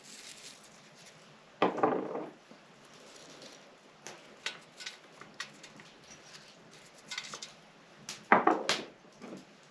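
Small ceramic dishes knocking and clinking against a wooden tabletop as they are handled, with two louder clatters about two seconds in and near the end, and light ticks and taps between.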